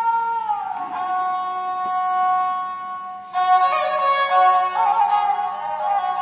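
Background music: long held melodic notes that step down in pitch about a second in, joined by a fuller layered passage from about three seconds in.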